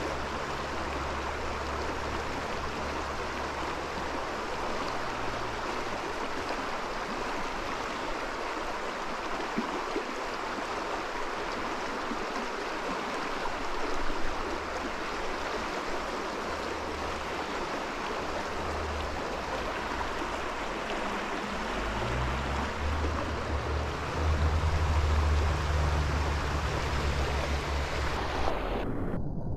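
Steady rush of a trout stream's running water, with a low rumble that comes and goes and is strongest in the last few seconds.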